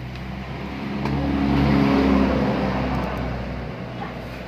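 A motor vehicle passing close by, its engine note swelling to a peak about two seconds in and then fading away.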